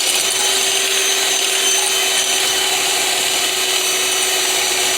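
Electric blender motor running at a steady high pitch, blending an egg-and-oil mayonnaise mixture as added water thins it out.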